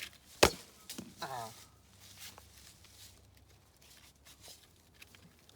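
One sharp thump about half a second in, from the toy stomp-rocket launcher's air pad being stepped on to fire a foam rocket. A brief voice follows with a falling pitch, and another sharp thump comes at the very end.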